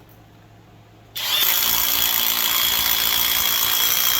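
Flex cordless impact driver running, starting about a second in and going steadily for about three seconds with a high whine over a dense mechanical rattle.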